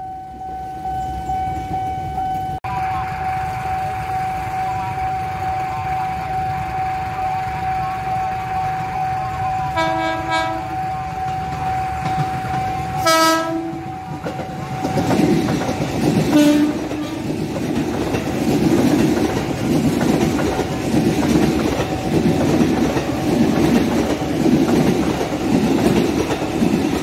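KRL JR 205 commuter electric train approaching, sounding two short horn blasts about 10 and 13 seconds in, then passing close with a regular clickety-clack of its wheels over the rail joints, which is the loudest part. A steady high tone runs under the first half and fades as the train draws near.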